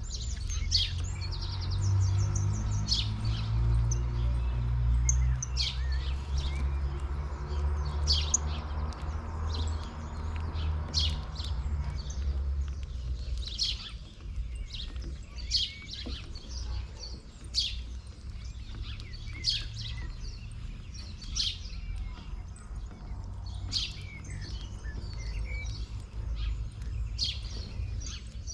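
Small birds chirping, with short high calls repeated irregularly throughout. A low rumble runs underneath and fades out about twelve seconds in.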